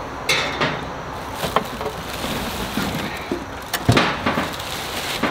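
Plastic wrapping rustling and crinkling as smoker parts are handled and lifted out of a cardboard box, with a few knocks of the parts. The loudest knock comes about four seconds in.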